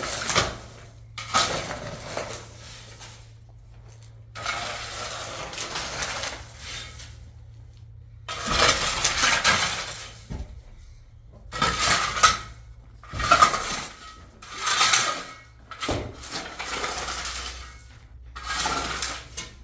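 Metal scraping and clinking in repeated bursts of a second or two, with short pauses between them.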